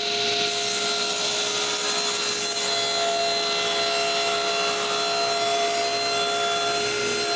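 Power saw running steadily while cutting a pre-varnished plywood shelf to length; the motor note stays level throughout.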